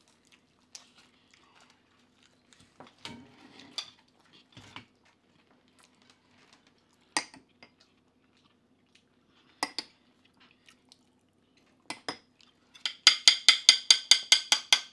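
Spoon and cutlery clinking against plates and serving bowls as food is dished out: scattered single clinks, then near the end a fast run of loud, sharp clinks, about eight a second.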